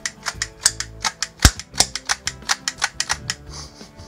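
Die-cast toy lever-action cap rifle fired rapidly on an 8-shot ring cap: a quick string of sharp cap pops and hammer clicks, about four or five a second, the loudest about one and a half seconds in, ending a little after three seconds.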